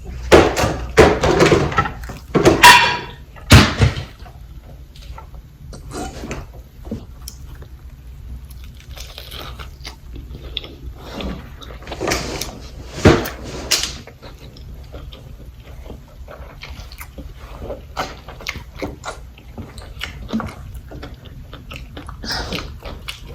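Close-miked eating: bites into a double fried chicken sandwich and moist chewing and mouth smacking. Loud clusters of bites in the first few seconds and again about halfway through, with softer chewing between.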